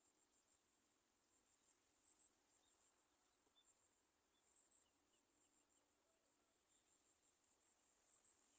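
Near silence, with a faint, steady, high-pitched whine or trill.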